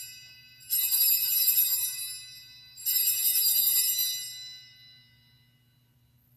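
Altar bells (sanctus bells) rung for the elevation of the chalice at the consecration: the fading tail of one ring, then two more shaken rings, one under a second in and one near the three-second mark, each bright and jingling and dying away.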